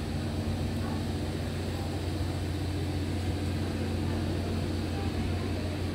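Steady low hum with a constant rumble underneath.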